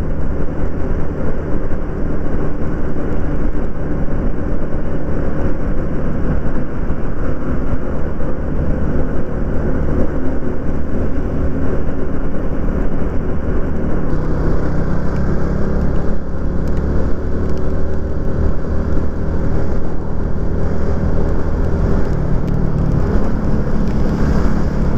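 A small motorcycle riding steadily in traffic: a steady engine hum under heavy wind noise on the microphone.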